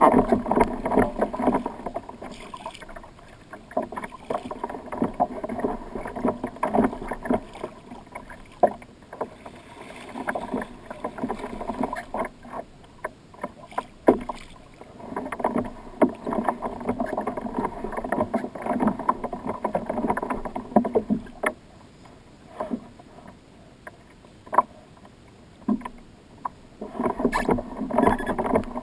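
Water sloshing and slapping against a kayak's hull in surges of a few seconds with quieter gaps, with scattered sharp knocks and clicks from the boat and tackle.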